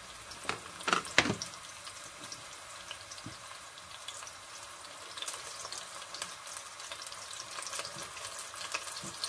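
Chopped onions, ginger and garlic sizzling in hot corn oil in an enamelled cast-iron pan: a steady crackling hiss. A few short knocks come in the first second and a half.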